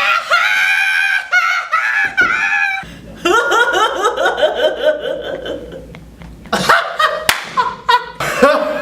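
Loud laughter: a high-pitched, drawn-out whoop, then a rapid run of laughs falling in pitch, with a few shorter laughs near the end.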